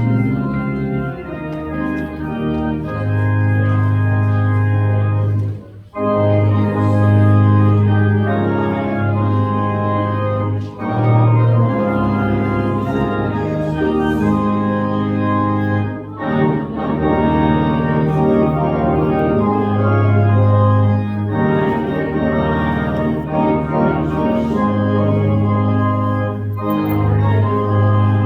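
Organ playing a hymn tune in held chords, with short breaks between phrases about 6, 11 and 16 seconds in.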